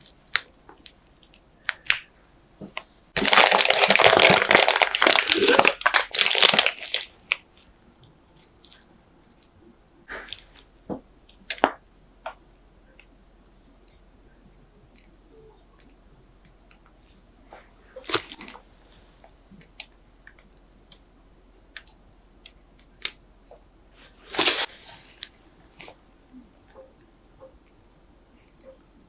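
Plastic piping bag crinkling loudly for a few seconds as it is handled and twisted around the choux dough. After that there are only occasional soft rustles and small taps while the dough is piped out onto parchment paper.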